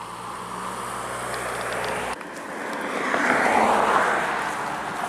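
A passing vehicle: a rushing noise that swells to its loudest about three and a half seconds in, then fades.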